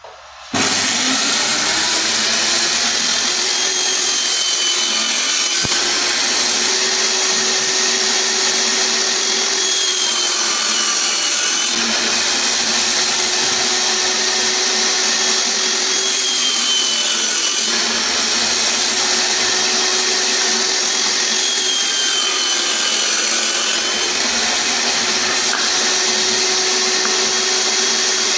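Table saw switched on about half a second in and running steadily while cutting through the sides of a pine and rosewood box, its pitch dipping briefly about every six seconds as the blade takes each side.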